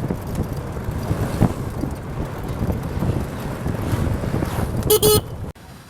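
Road traffic rumbling, with wind buffeting the microphone. About five seconds in, a loud horn sounds briefly, then the traffic noise cuts off to a much quieter background.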